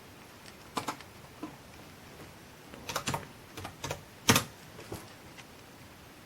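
Computer keyboard keys and clicks pressed in a few irregular bursts, about ten short clicks in all, the loudest about four seconds in.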